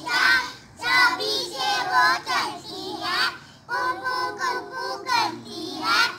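A young child singing a rhyme loudly, in short phrases with brief breaks between them.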